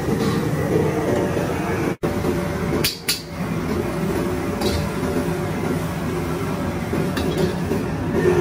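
Commercial gas wok burner running with a steady low rush of kitchen noise, broken by an instant cut about two seconds in. A few sharp metal clinks of a wok and utensils, the clearest just after three seconds in.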